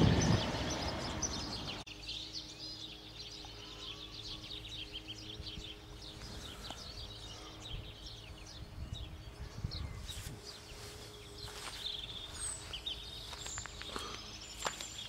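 Low rumbling noise, like wind on the microphone, fading out over the first two seconds, then small birds chirping and singing over a faint steady hum. From about ten seconds in, footsteps and rustling in grass come in under the birdsong.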